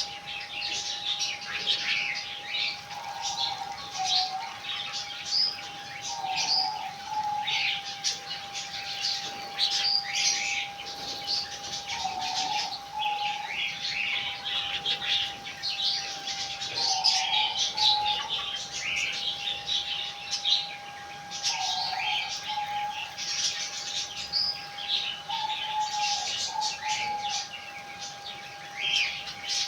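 Many small birds chirping and twittering continuously, their calls overlapping, with a steady faint tone underneath.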